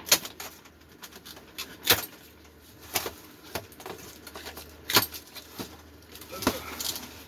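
A handful of sharp knocks and clunks, about five spread over several seconds, of stored items and fittings being handled and moved while the boat's refrigerator is opened and emptied.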